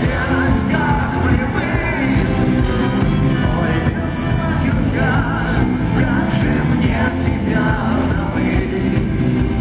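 Rock band playing live and loud, with singing over the band.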